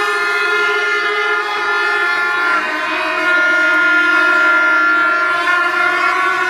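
Kombu, the C-shaped brass horns of Kerala temple music, blown together by a row of players in one long held blast, several slightly different pitches sounding at once.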